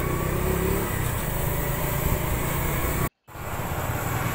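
Kawasaki Z125's small single-cylinder engine running, heard as a steady low drone of engine and road noise. The sound cuts out completely for a moment about three seconds in, then comes back.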